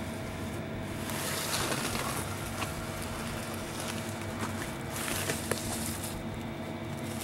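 A steady mechanical hum under an even hiss, with faint rustling and a few soft clicks between about one and six seconds in as a handheld light meter is shifted across a reflective tent floor.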